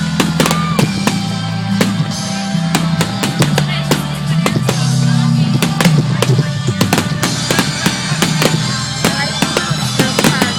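Music with bass and drums playing loudly, mixed with many irregular sharp cracks and pops from fireworks.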